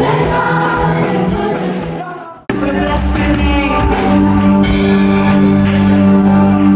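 Gospel-style church music with singing fades out about two seconds in and breaks off. Different music then starts, with long held chords.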